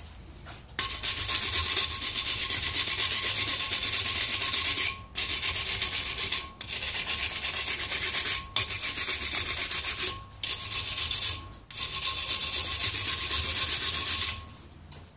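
Hand file rasping on a steel bracket in quick back-and-forth strokes. It starts about a second in and runs in stretches of a few seconds, broken by five brief pauses.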